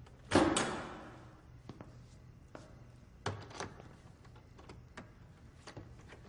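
A loud bang about half a second in that fades with an echo, then scattered footsteps on a hard floor.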